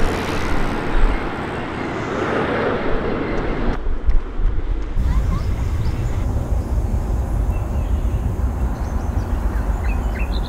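Outdoor street ambience: a steady low rumble of road traffic, with a broader rushing noise in the first four seconds that cuts off abruptly. A few short, high chirps come near the end.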